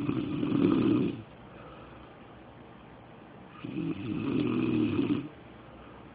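A man snoring in his sleep: two long snores about four seconds apart, each lasting well over a second.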